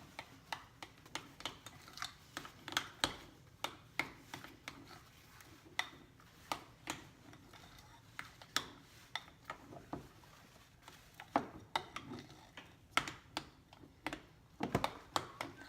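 A utensil clinking and scraping against a bowl, stirring spices into ricotta cheese, with irregular light taps about one or two a second.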